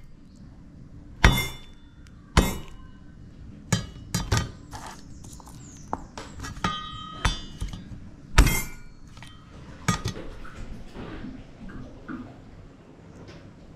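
Large kitchen knife striking garlic cloves on a plastic cutting board: about half a dozen sharp knocks at uneven intervals, with a brief metallic ring around the middle.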